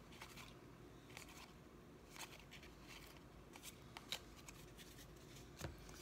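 Faint, irregular soft clicks and slides of trading cards being flipped through in the hands, one card sliding off another.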